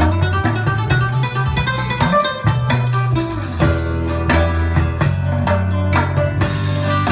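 Music played through a Bowers & Wilkins 800 Series Diamond floor-standing loudspeaker: quick plucked guitar notes over a steady, heavy bass line.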